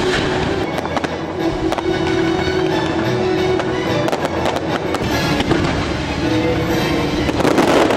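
Fireworks bursting in quick succession over loud show music with held notes, the bangs crowding together and growing louder near the end.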